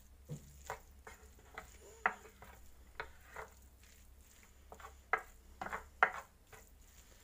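Wooden spoon stirring a minced-meat and vegetable filling in a nonstick pan: a run of short, irregular scrapes and taps against the pan, the loudest about six seconds in.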